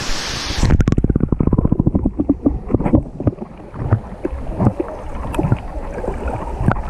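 Muffled underwater sound from a GoPro camera plunged beneath the water surface. The open-air water noise cuts off suddenly under a second in and gives way to a fast run of clicks, then irregular knocks and thumps.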